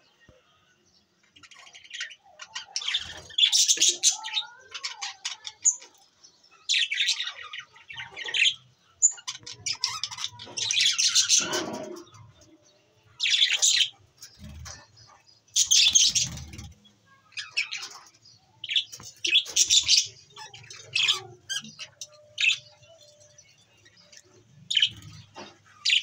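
A flock of budgerigars chattering and chirping in busy bursts with short pauses between, starting about a second and a half in.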